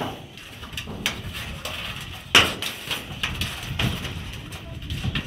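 Scuffs and knocks on a corrugated metal roof sheet as a hand grabs a kitten scrambling on it, with one sharp knock about two and a half seconds in standing out above the rest.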